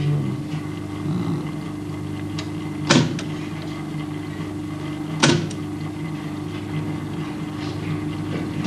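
Typewriter keys striking the paper one letter at a time: three sharp strikes a couple of seconds apart, over a steady low hum.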